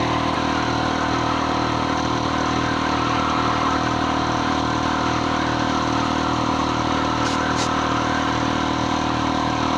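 Ridgid 6-gallon air compressor's motor and pump running steadily as it fills its tank.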